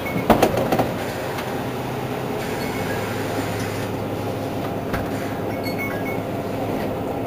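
Mercedes-Benz Citaro G C2 articulated bus idling at a standstill with a steady hum. A quick run of clicks and knocks comes about half a second in, and a single click a few seconds later.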